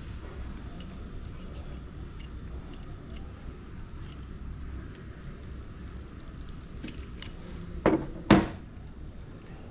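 Reconstruction bone plate being worked by hand in a bending tool, giving small scattered metal clicks and ticks, then two louder metallic clanks about half a second apart near the end.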